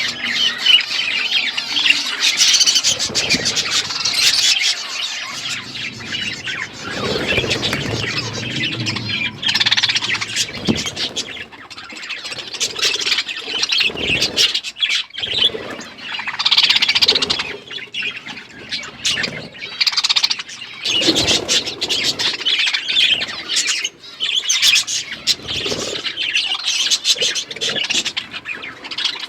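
A flock of budgerigars chattering continuously with chirps and squawks, mixed with occasional low rustles and thumps.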